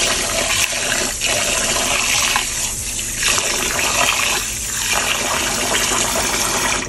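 Tap water running into a stainless steel bowl of soaked glutinous rice in a steel sink, while a hand swishes the rice through the water to rinse it. The running water is steady, with slight swells as the hand stirs, and cuts off suddenly at the end.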